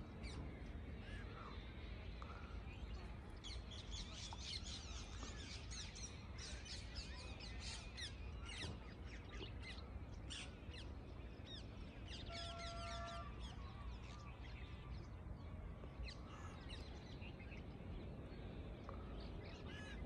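Small birds chirping and trilling in quick high notes, thickest in the first half, over a faint, low, steady rumble. A short, steady whistle-like tone sounds a little past the middle.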